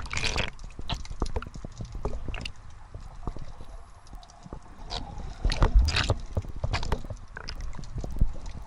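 Underwater sound as picked up by a submerged camera: a dense crackle of short sharp clicks throughout, with a few louder swishes of water about the start and again around six and seven seconds in.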